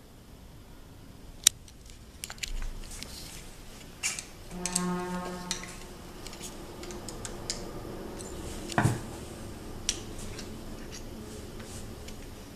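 Scattered clicks and light knocks of hands working a hot foil stamping machine and handling a foil roll on its metal rod, with a louder knock near nine seconds. A held, horn-like tone sounds for about a second and a half around five seconds in.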